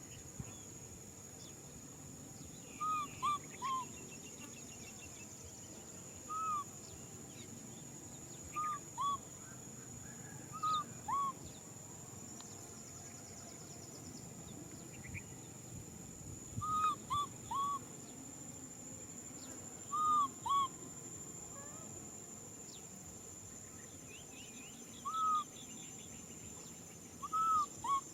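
A baby macaque crying out to be held, with short, high coo calls that rise and fall, given singly or in twos and threes every few seconds.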